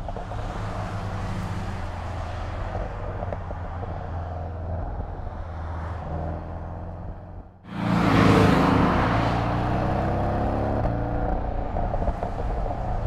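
Porsche 718 Boxster GTS's turbocharged flat-four engine running steadily under way. About seven and a half seconds in it briefly drops away, then comes back much louder with a rush of noise, its pitch easing down before it settles into a steady drone again.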